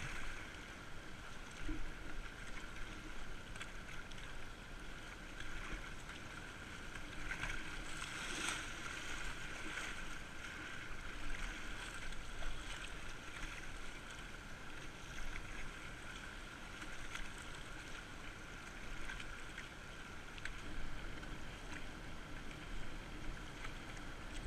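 Fast-flowing river water rushing and splashing against a kayak's hull, with the paddle blades dipping into the water now and then. The river is running high, at about 55 cubic metres a second.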